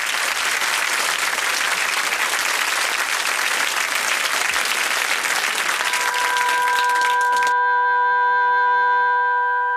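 Studio audience applauding at the end of a comedy sketch. About six seconds in, a held musical chord of steady tones enters. The applause then cuts off abruptly, leaving the chord sounding alone.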